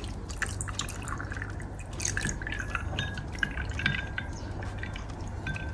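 Zobo (hibiscus) drink being poured into cups over ice cubes: liquid trickling and dripping, with many short light clicks and clinks throughout.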